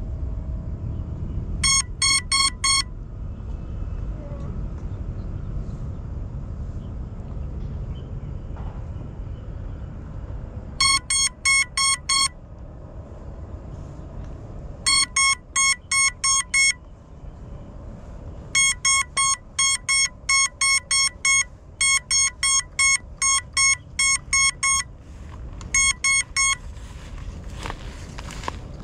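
FPV drone's lost-model buzzer beeping after the drone has come down in a bush, sounding high, evenly pitched beeps in quick runs separated by pauses, over a steady low rumble.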